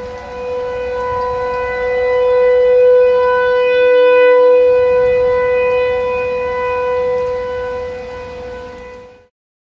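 Outdoor tornado warning siren sounding one steady tone, swelling louder over the first few seconds and then fading. The sound cuts off abruptly near the end.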